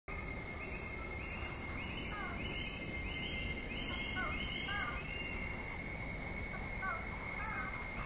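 Tropical forest ambience: insects singing in steady high tones, one pulsing chirp repeating about every two-thirds of a second, and a bird giving short, sliding call notes several times.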